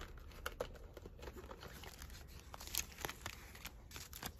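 Light rustling and crinkling of paper and plastic with scattered small clicks, from a planner and its sticky tabs being handled.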